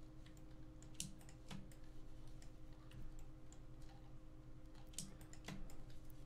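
Faint, scattered clicks of computer input at a desk, about a dozen irregularly spaced, over a low steady hum.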